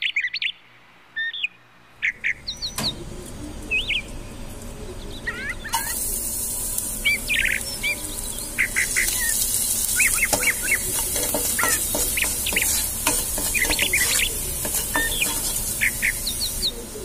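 Small birds chirping over and over in short, quick rising-and-falling calls. About six seconds in, a steady high hiss joins them.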